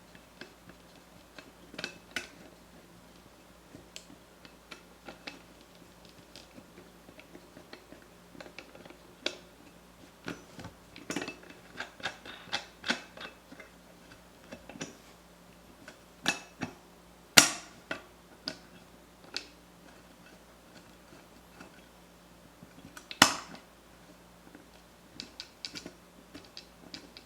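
Parts of a Mazzer Mini coffee grinder's doser being handled and fitted back together by hand: scattered light clicks, taps and scrapes, with two sharper knocks, one about 17 seconds in and another about 23 seconds in.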